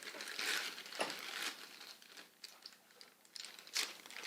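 Paper and plastic packaging being handled, crinkling and rustling in irregular bursts, with a sharp crinkle about a second in and another burst near the end.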